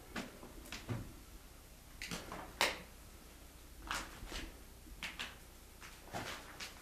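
Slow footsteps scuffing over a debris-littered floor, a short sharp step sound every half second to a second, with one louder crack about two and a half seconds in.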